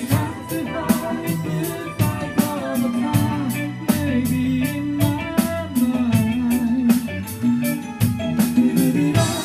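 A live rock band playing a song with electric guitar, bass guitar and drum kit over a steady beat.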